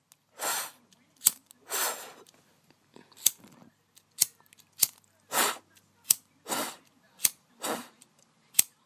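A lighter struck over and over: about eight sharp clicks at irregular spacing, alternating with short rushing puffs of breath or gas about half a second long.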